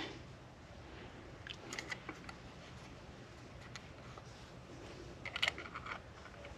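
Faint clicks and taps of a dial-type rod bolt stretch gauge being handled and fitted to a connecting-rod bolt while it is set to zero: a few light clicks about two seconds in and a small cluster of clicks a little past five seconds.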